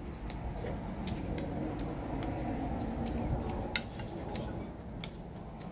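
Eating at the table: chewing, with scattered light clicks of a spoon against the bowl, over a steady low background rumble.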